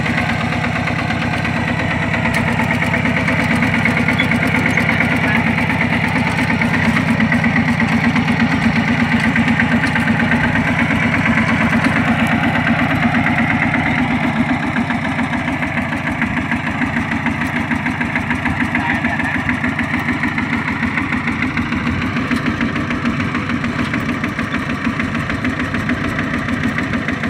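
Single-cylinder diesel engine of a two-wheel walking tractor running steadily with a fast, even chug. It works under load to drag the tractor and its loaded trailer out of mud, a little louder in the first half before easing slightly.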